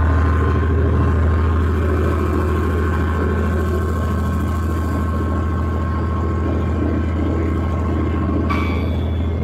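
Class 66 diesel locomotive's EMD two-stroke V12 engine running while under way, heard from inside the cab as a steady low drone with a faint higher whine over it.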